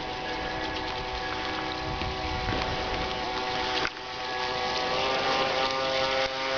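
Ansmann Lugano RC model runabout's electric Kyosho AP-29-type motor running at speed, a steady whine with several layered tones over a hiss of spray. It briefly drops about four seconds in, then comes back louder.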